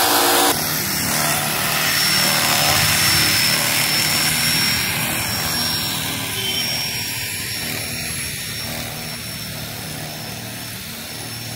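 Electric power tool running in a woodwork stall where MDF board is cut and carved, a steady mechanical noise with a thin high whine that slowly fades and stops suddenly near the end.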